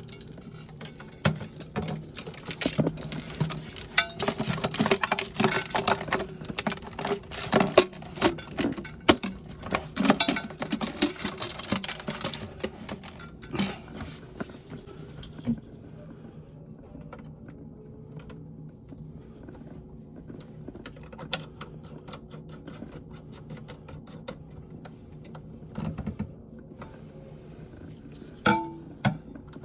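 Clicks, taps and rattles of hard parts being handled while toilet-tank fittings are worked on. The clatter is dense for about the first half and thins to occasional taps later, over a steady low hum.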